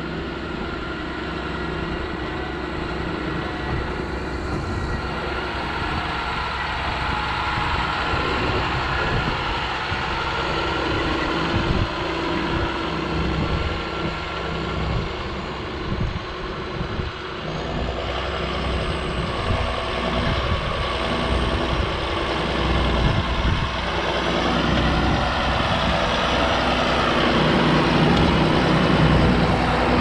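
John Deere 6930 tractor's six-cylinder diesel engine working under load as it pulls a reversible plough through the soil. It grows steadily louder as the tractor comes close, nearest near the end.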